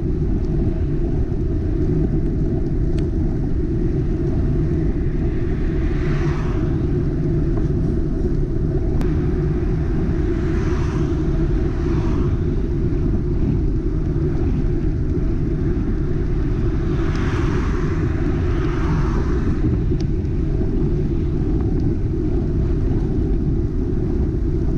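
Steady low wind rumble buffeting a bicycle-mounted action camera's microphone while riding at about 25 km/h. The tyre hiss of passing cars swells and fades a few times: around six, eleven and eighteen seconds in.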